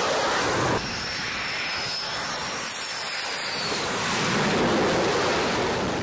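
Jet noise from F/A-18 fighters flying past, a steady rushing sound mixed with wind, with a thin high whine that falls in pitch from about a second in.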